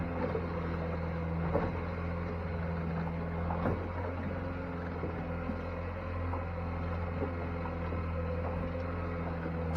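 Boat engine running steadily at an even, low speed, a constant drone, with a few faint knocks on the hull or gear.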